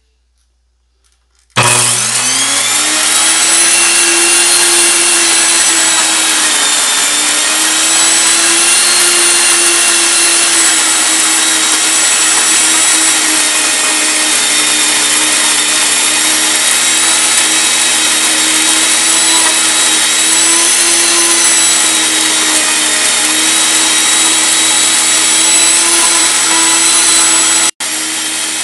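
NutriMill Classic electric grain mill switched on, spinning up with a rising whine, then running with a loud, steady high whine and hiss as it grinds wheat berries into fine bread flour. Near the end it cuts out for an instant and resumes a little quieter.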